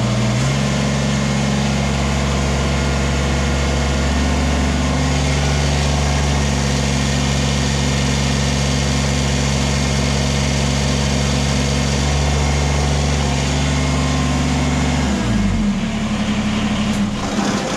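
Kubota BX23S tractor's three-cylinder diesel engine running steadily while the loader hydraulics are held at relief for a pressure test, with the shimmed relief valve reading about 2100 PSI. About fifteen seconds in the engine slows, winds down and stops as it is switched off.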